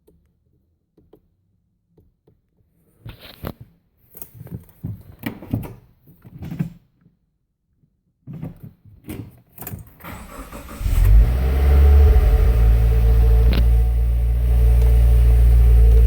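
A few scattered clicks and knocks, then about eleven seconds in the Subaru WRX's turbocharged flat-four engine starts and settles into a steady idle.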